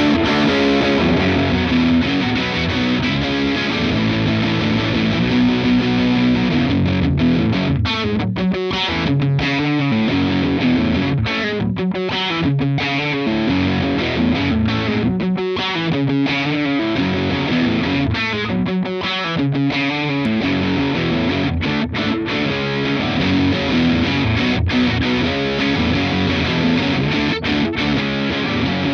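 Electric guitar played through The Crook V4 overdrive pedal, a run of distorted chords and riffs. The pedal's clipping switch is moved between settings, changing the character of the clipping. The playing breaks into short, chopped stabs in the middle stretch.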